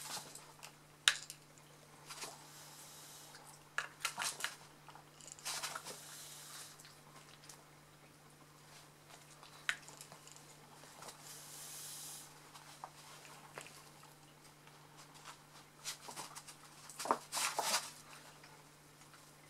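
Shih Tzu puppy snapping at soap bubbles and scampering: scattered clicks of jaws and claws with short scuffles, a sharp click about a second in and a busier cluster near the end.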